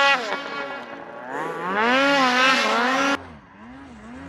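Snowmobile engine revving hard, its pitch rising and falling every second or so as the sled climbs through deep snow. About three seconds in the sound cuts off abruptly to a fainter snowmobile revving up and down.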